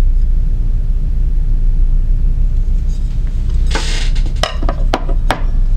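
Steady low hum. About four seconds in comes a short rustle, then a quick series of sharp clicks and light clinks as knives are picked up and handled.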